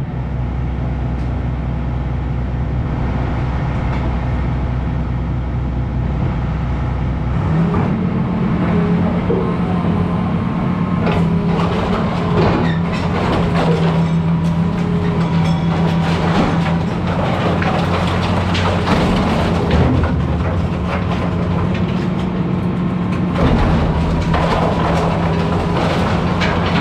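200-size hydraulic excavator's diesel engine running steadily, then revving up to working speed about seven seconds in. From there on come repeated cracks and crunches of wood and debris as the machine tears into the house.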